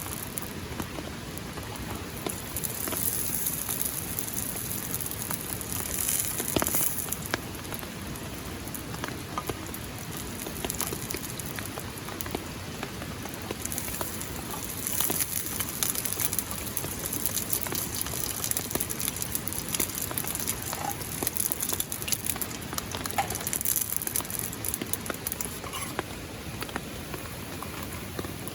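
Rain falling and pattering, many small drop ticks over a steady hiss, with a few spells where it comes down heavier.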